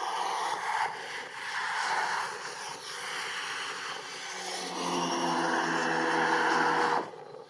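Jet engines of an Airbus A330-200 on final approach, a distant roar that swells and fades with gusts of wind on the microphone. A low hum of several steady tones joins about four and a half seconds in, and the whole sound drops away suddenly near the end.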